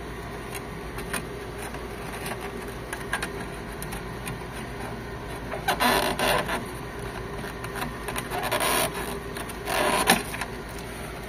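Scanner cables being unplugged from the logic board of an HP Officejet 7612 printer: scattered small clicks of plastic connectors and handling, with three short scraping, rustling pulls about six, eight and a half and ten seconds in, the last the loudest, over a steady low hum.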